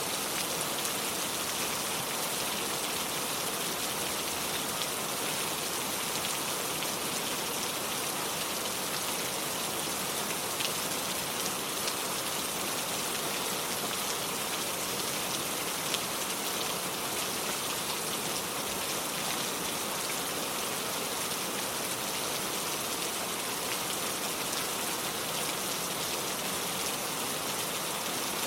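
Steady rain falling on hard ground, a constant even hiss with a few louder single drops ticking now and then.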